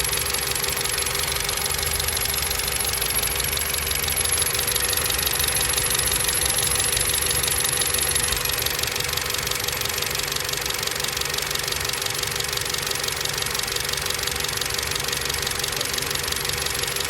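Skoda Octavia A7's 1.8 TSI turbocharged four-cylinder petrol engine running just after a cold start, with a high whistle and a grinding, scraping noise over it. The whistle is strongest for the first eight seconds or so, then eases as the sound drops slightly. The owner does not know the cause of this cold-start whistle and grinding.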